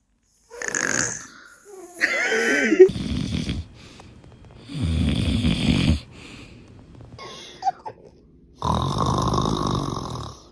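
A person snoring: three long snores a few seconds apart, with a short high-pitched voice sound just before the first.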